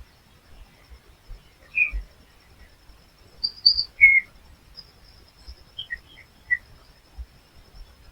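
Small songbirds chirping: short, separate high notes, a loud cluster about halfway through and a few quicker notes near the end. A faint steady high thin tone runs underneath.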